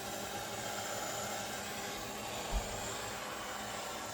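Heat gun blowing steadily, heating a joint to flow solder, with a brief low thump about two and a half seconds in.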